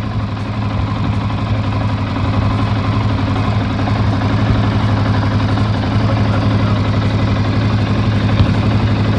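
2015 CFMOTO CForce 500 ATV's single-cylinder engine idling steadily while it warms up, heard close up in the engine bay.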